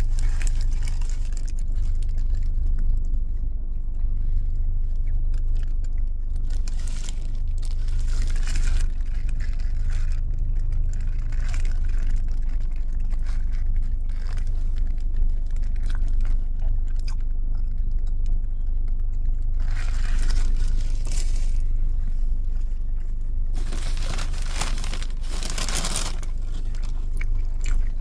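Close-up biting and chewing of a Burger King Triple Rodeo Mega Stacker beef burger, with several louder crunchy or crinkly stretches, over a steady low rumble.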